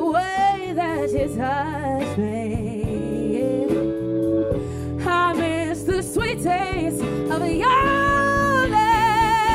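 Live band music: a woman sings over electric guitar, bass, drums and keyboard, holding a long note with vibrato near the end.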